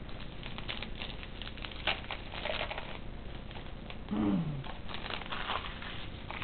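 Hockey trading cards being handled: the crinkle of a card-pack wrapper and cards sliding and flicking against each other, with scattered small clicks. About four seconds in, a person gives a short falling hum.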